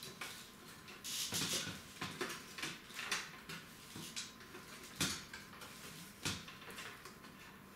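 Power-supply cables rustling and scraping as they are pulled and routed by hand inside a steel PC case, with a few sharp clicks and knocks against the metal, the loudest about five seconds in and another about a second later.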